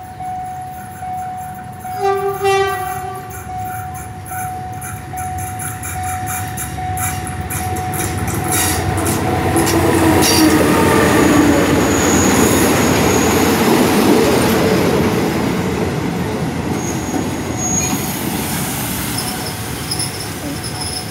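State Railway of Thailand diesel locomotive and passenger coaches rolling slowly past. A horn-like tone sounds first, with a short blast about two seconds in. The rumble and rattle of the engine and wheels grow loud as the locomotive passes, then ease into the steadier run of the coaches, with thin high wheel squeals near the end.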